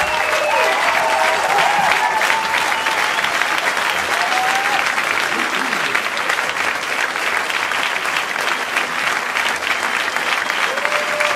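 Audience applauding steadily, with some cheering over the clapping in the first few seconds.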